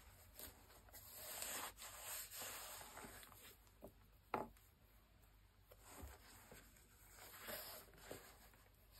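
Faint rubbing and handling noise from cotton-gloved hands turning a sneaker with a synthetic leather upper, with a few light taps, the clearest about four seconds in.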